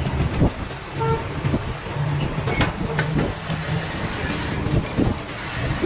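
Lathe running while steel wire is wound into a tight coil spring on a mandrel in its four-jaw chuck: a steady low motor hum with irregular metallic knocks and scraping as the wire feeds through the guide lever.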